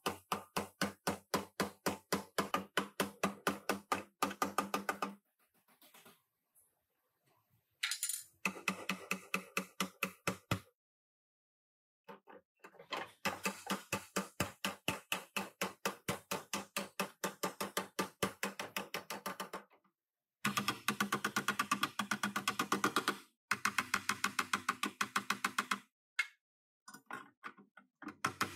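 Rapid hammer blows on the steel rear frame rail of a rear-ended car, about five strikes a second, in runs of several seconds with short pauses and a metallic ring. The blows are knocking the crumpled rail back into shape while it is held under tension by a frame-pulling chain.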